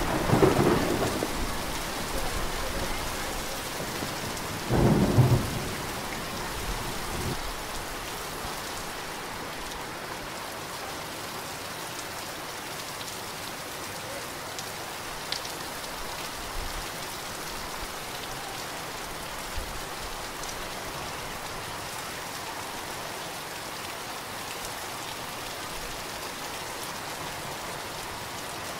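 Heavy tropical-storm rain falling steadily, with thunder rumbling and fading over the first couple of seconds. A second thunderclap comes about five seconds in; after that there is only the steady hiss of the rain with an occasional sharp drip.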